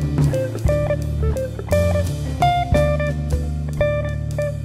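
Background music with guitar, bass and drums.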